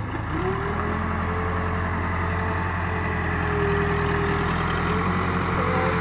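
Case 580K backhoe's four-cylinder diesel engine running steadily as the machine drives with a loaded front bucket, getting a little louder as it approaches about halfway through.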